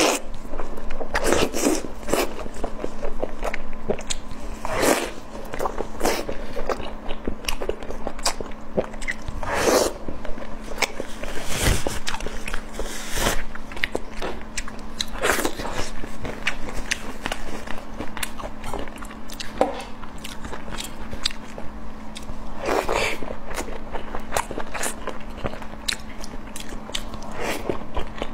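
Close-miked eating sounds: a person biting into and chewing pan-fried buns, with many short wet mouth clicks and now and then a louder bite or crunch. A faint steady hum runs underneath.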